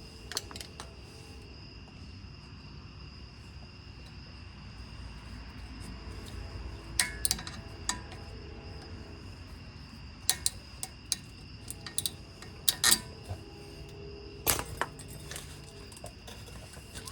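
Hand tools clinking and tapping on the metal parts of a Jeep's front brake. The sharp metallic clinks come scattered and sparse, most of them after the first third, a few in quick pairs.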